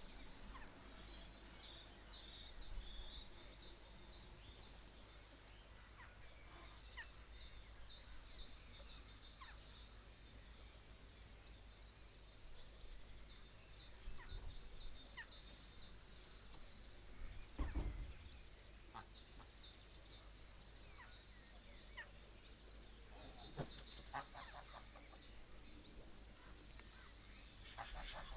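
Faint outdoor birdsong: many short high chirps from small birds, with a few lower calls from geese. A brief low thump about eighteen seconds in.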